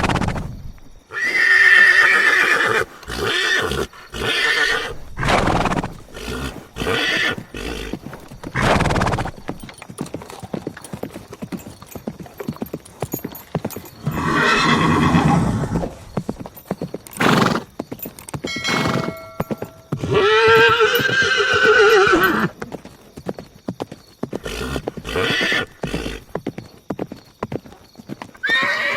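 Horses neighing again and again, in long wavering whinnies, the loudest about a second in and another about twenty seconds in, over irregular hooves clopping on hard ground.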